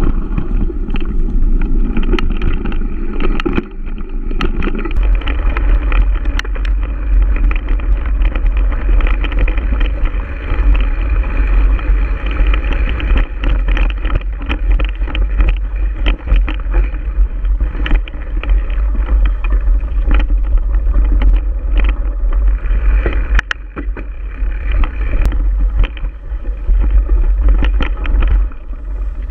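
Giant Stance 1 mountain bike ridden over a dirt and rocky forest trail: tyre noise on the dirt, frequent clicks and rattles from the bike as it goes over bumps and rocks, and a constant low rumble of wind on the bike-mounted camera's microphone.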